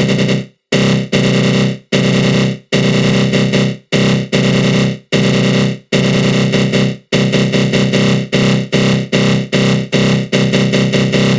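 Synthesized attack growl, a harsh buzzy synth tone swept by a flanger, played in repeated bursts that each fade away. The bursts last about a second each at first and quicken to about three a second from around seven seconds in.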